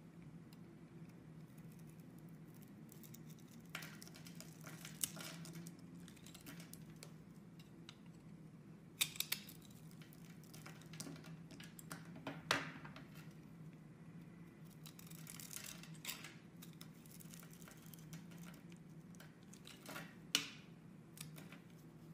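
A metal blade scraping and shaving curls off bars of soap, in short crisp scrapes that come in clusters with pauses between, over a faint steady low hum.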